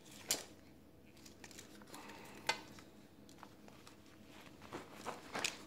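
Sharp little plastic clicks and light crinkling as a hypodermic needle is twisted and worked out of its plastic cap and packaging: one click shortly after the start, another about two and a half seconds in, and a quick run of clicks near the end.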